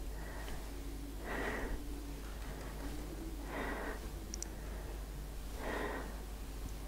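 A woman breathing out hard three times, about every two seconds, in time with repetitions of a shoulder-blade squeeze exercise.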